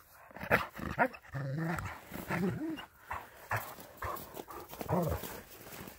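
Dogs playing, giving several short calls that rise and fall in pitch.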